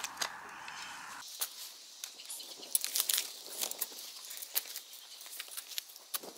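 Garden spade cutting and levering into soil and turf, a run of irregular crunches and scrapes.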